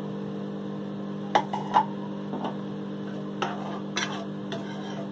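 Steel spoon clinking and scraping against a kadhai as watery onion-tomato masala is stirred, a handful of sharp clinks with the loudest two about a second and a half in. A steady low hum runs underneath.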